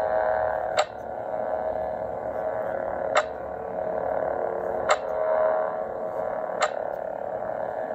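Lightsaber sound board playing its idle hum through the hilt speaker, a steady pulsing hum, with a sharp click every one and a half to two seconds.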